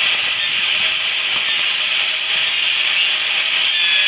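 A steady, loud, high-pitched hissing buzz that does not change.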